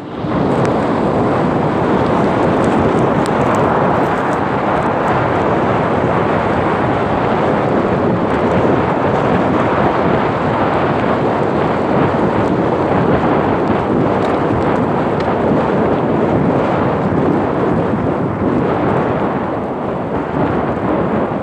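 Loud, steady wind buffeting on the microphone of a camera carried on an electric bike ridden at speed. It comes up suddenly at the start and eases a little near the end.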